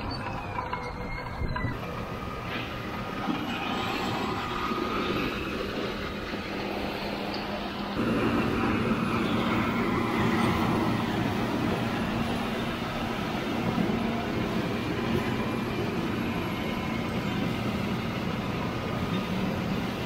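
Steady drone of farm machinery: a tractor pulling a grain cart, with a John Deere combine running close alongside. About eight seconds in the drone grows louder and a new steady hum joins it as the combine draws near.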